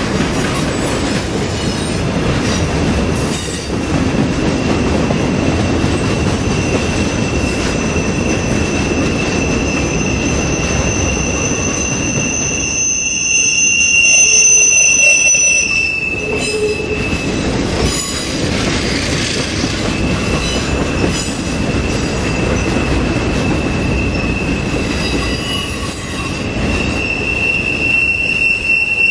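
Freight cars of a mixed manifest train rolling past close by: a steady rumble of steel wheels on rail, with a high, thin wheel squeal over it. The squeal drops out for a few seconds past the middle and then returns.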